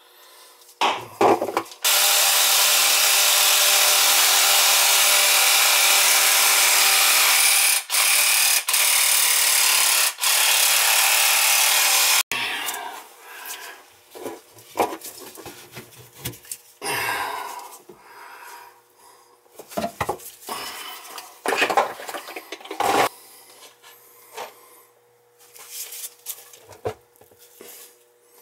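Power saw cutting PVC drain pipe: a loud steady run of about ten seconds with two short breaks. Then scattered knocks and rubbing as plastic drain fittings are handled.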